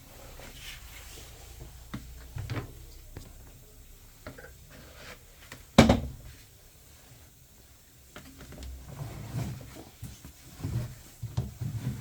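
Scattered knocks and clunks, the loudest a single sharp bang about six seconds in, followed by a run of low thumps near the end.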